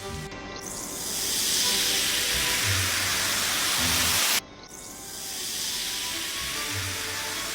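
A loud hissing noise swells in, cuts off abruptly about four seconds in, then starts again and builds, over background music with a low pulsing beat.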